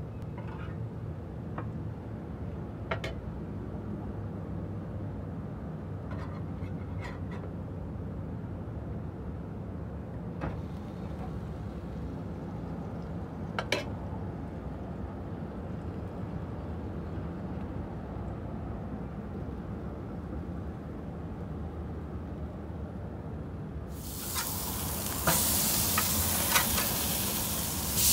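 Pork chops on a grill grate: a steady low hum with a few light clicks, then near the end a loud sizzling hiss as a chop is turned with a spatula.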